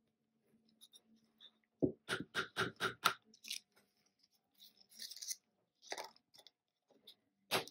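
Plastic paint cup and spoon being handled: a quick run of about seven small clicks and scrapes, then a few scattered clicks and a short rustle.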